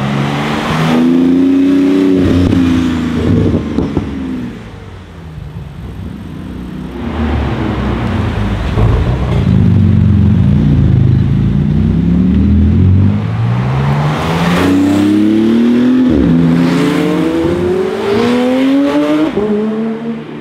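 Porsche 991 GT2 RS twin-turbo flat-six accelerating hard in several passes, its pitch climbing through each gear and dropping sharply at the upshifts.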